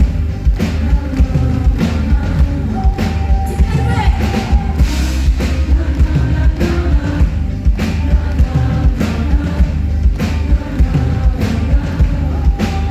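Live rock band playing with a steady drum-kit beat, about two hits a second, under sung vocals.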